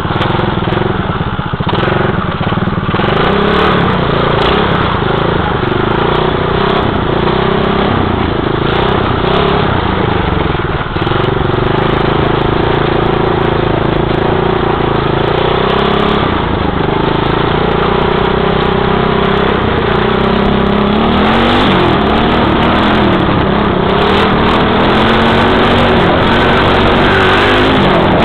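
Small dirt bike engine heard from on board while riding a rough, muddy trail, running the whole time with its pitch rising and falling as the throttle is worked. The revs climb and dip more often in the last several seconds.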